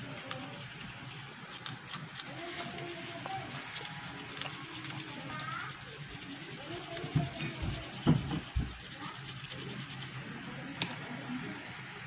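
Rapid rubbing and scraping on the air conditioner's circuit board, a dense run of fine strokes that stops about ten seconds in. A few low knocks come around eight seconds.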